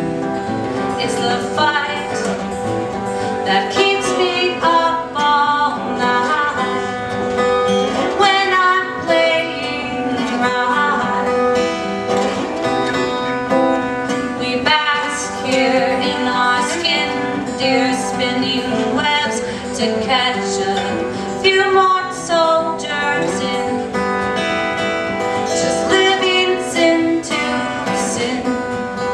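Band music led by acoustic guitar, with dense plucked and strummed notes, during a stretch of the song where no lyrics are heard.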